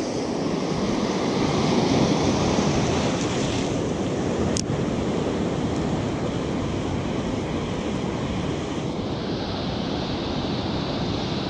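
Ocean surf washing in and out around the angler's legs, a steady rushing that swells a little early on, with wind on the microphone. A single brief click about four and a half seconds in.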